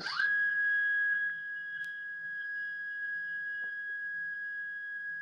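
CNC3040 router's Y-axis stepper motor whining at a steady pitch as it jogs the bed along the axis, then cutting off abruptly near the end as the newly fitted limit switch trips and stops the axis.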